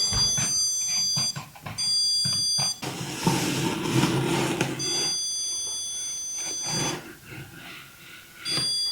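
Electronic stud finder giving a steady high beep that comes and goes in stretches of about one to two seconds as it is slid along the wall, sounding over each stud. In a gap between the beeps, a short scraping or rubbing noise.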